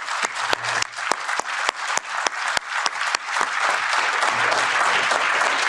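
Audience applauding. For the first three seconds one loud, steady clap about three and a half times a second stands out; then the applause fills out into dense, even clapping.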